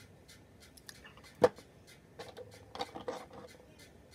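A fluffy powder brush sweeping across the skin in quick soft strokes, a few a second, brushing off baked setting powder. A single sharp knock about a second and a half in is the loudest sound.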